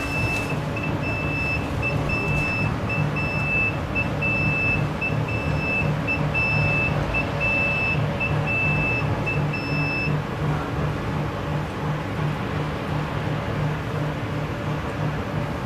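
Inside a TVZ 71-931 "Vityaz'-M" tram: a high electronic tone with short breaks sounds for about ten seconds, then stops, over the tram's low, evenly pulsing hum.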